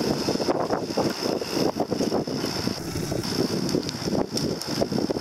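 Wind buffeting the microphone of a camera riding on a moving bicycle: an uneven, fluttering rush, with a steady high-pitched hiss over it.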